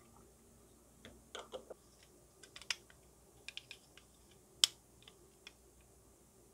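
Hard plastic model-kit parts clicking and tapping against each other as they are handled and fitted together, in an irregular scatter of small clicks with one sharp snap about four and a half seconds in.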